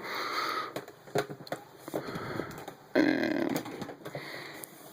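A person sniffing, then a few light clicks and knocks.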